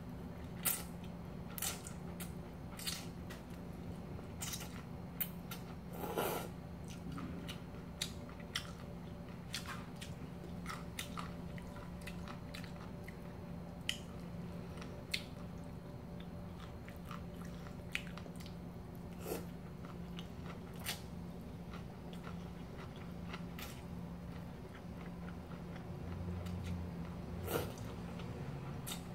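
Close-up eating sounds of cold kimchi noodles: wet chewing and scattered small clicks, with longer slurps of noodles about six seconds in and near the end. A steady low hum runs underneath.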